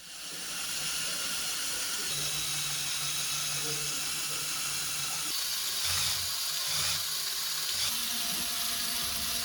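Steady hiss like static or white noise, with faint low hums underneath.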